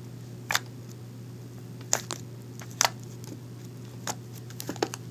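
Fluffy slime being poked and squeezed by fingers, giving about half a dozen short, separate pops and squelches.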